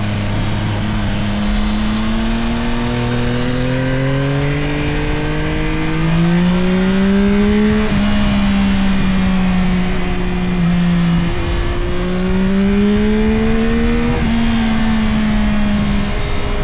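Yamaha Tracer 9 GT+ CP3 three-cylinder engine pulling under acceleration, its pitch climbing steadily. The pitch drops at upshifts about 8 and 14 seconds in, with a brief break in the note around 11 seconds.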